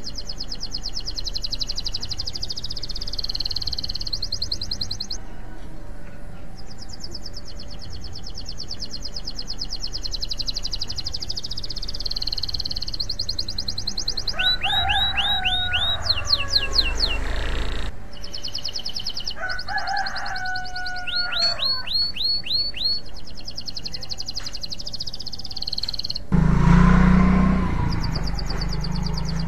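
Domestic canary singing: long, fast, high trills with short pauses, broken twice by quick runs of sweeping whistled notes. A loud low rumble comes in near the end.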